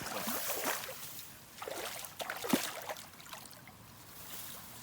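Water splashing in two short, irregular spells, with a sharp knock about two and a half seconds in.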